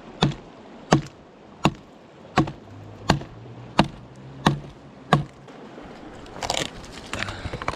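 An axe chopping firewood: eight sharp, evenly paced strikes, a little more than one a second, followed near the end by a brief rustle.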